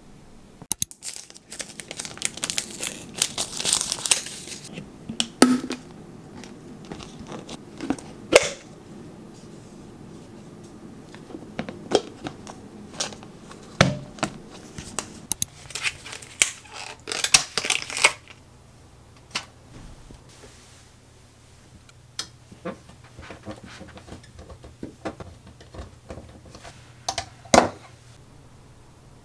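Packaging being crinkled and torn open, with scattered sharp clicks and light knocks as small household items are handled. A faint low steady hum sets in about halfway through.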